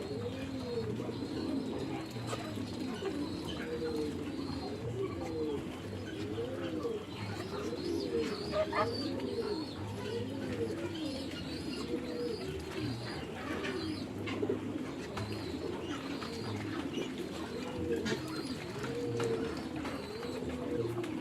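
Many pigeons cooing together, their coos overlapping continuously, with fainter high bird chirps above.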